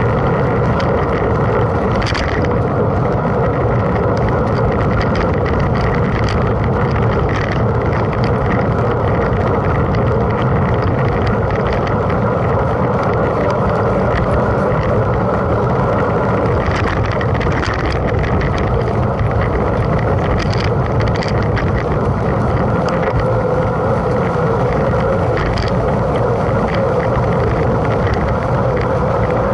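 Steady riding noise of a mountain bike in a race: wind on the microphone and tyre rumble, with a few brief rattles from the bike.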